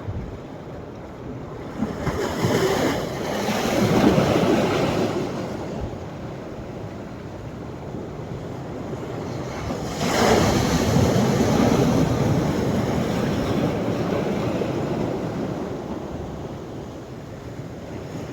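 Sea waves breaking on the shore: two breakers, one about two seconds in and one about ten seconds in, each surging and then slowly washing out.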